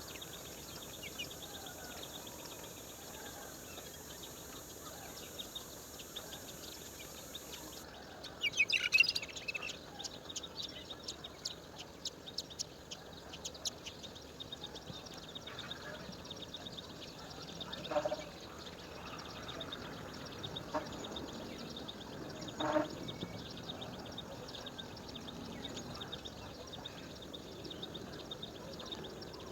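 Birds calling outdoors, with a loud burst of high chirps about nine seconds in and scattered short calls over a steady background.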